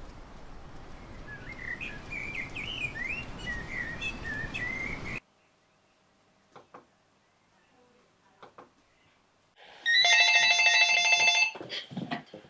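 Outdoor street ambience with birds chirping for about five seconds, then an abrupt cut to a near-silent room with a few faint clicks. Near the end a cordless landline phone rings loudly with a trilling electronic ringtone for about a second and a half.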